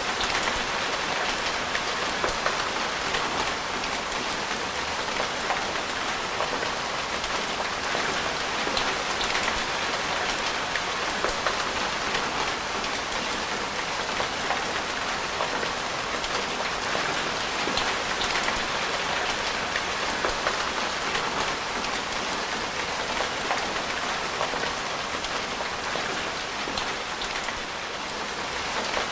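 Steady rain: a dense, even hiss with many small raindrops ticking through it.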